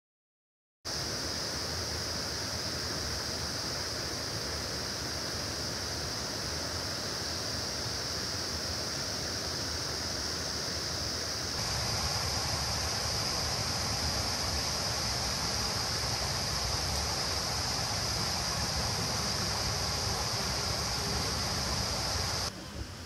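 Steady rushing of a clear mountain stream, with a high even hiss over it. It starts abruptly after a moment of silence, and changes tone suddenly about halfway through, where two recordings are cut together.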